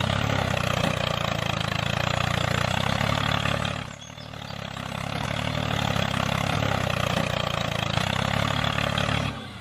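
Diesel tractor engine running steadily. It dips and swells back about four seconds in, and drops briefly again near the end.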